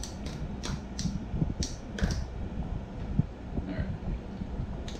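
Short clicks and rustles of an AnimalHouseFit MonkeyFeet foot-mounted dumbbell holder being handled and strapped onto a bare foot, several quick clicks in the first two seconds and a few fainter ones later.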